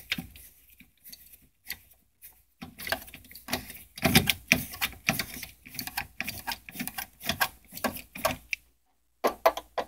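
Phillips screwdriver turning and loosening the screws on a rear projection TV's lamp housing: a run of irregular, fast mechanical clicks that starts about two and a half seconds in and stops shortly before the end.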